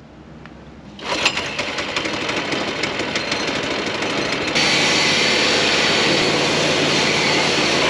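A go-kart's small single-cylinder engine starts about a second in and runs with a fast, even beat, left running with its fuel shut off to empty the carburetor. A little past halfway a leaf blower starts up over it with a loud, steady hiss.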